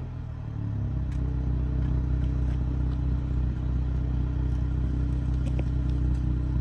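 Dodge Charger SXT's V6 running steadily at low revs through Flowmaster Super 10 mufflers, a deep, even exhaust note with a few faint ticks.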